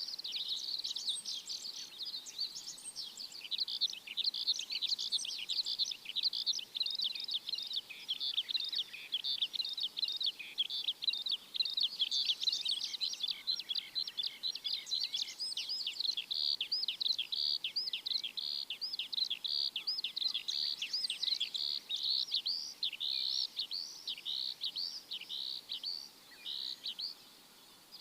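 A chorus of many small birds chirping, a dense unbroken stream of quick high chirps over a faint background hiss.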